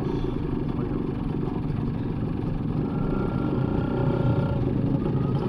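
Suzuki motorcycle engine of a tricycle running at low road speed, heard from inside the sidecar, with a faint steady high tone coming in about halfway through.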